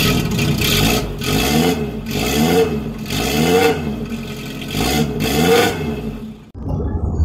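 Engine revving, its pitch rising and falling again and again about once a second. It cuts off abruptly near the end and gives way to a low rumble.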